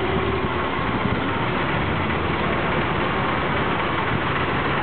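Vintage Alfa Romeo touring car's engine running steadily as the car creeps forward at low speed.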